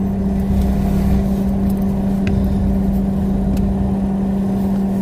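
Talbot motorhome's engine running at a steady low speed, a constant drone with a low rumble beneath it.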